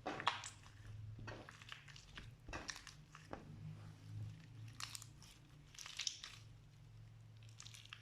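Slime being squeezed and pressed by hand, giving irregular crackling, crunching strokes of uneven length.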